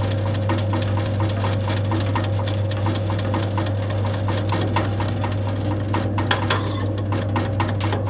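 Keripik chip-slicing machine running steadily while slicing carrots into thin chips. Its motor hums at a constant pitch, under a rapid, regular ticking of about four clicks a second from the cutting.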